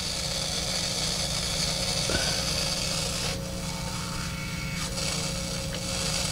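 Hiss and scratchy noise from a vintage DeArmond 1802 Weeper wah pedal played through a guitar amp, changing as the treadle is rocked, with the top of the hiss thinning about three seconds in, over a steady hum. It is "noisy as hell", noise the repairer suspects may be inherent to the pedal, whose sealed pot cannot be cleaned.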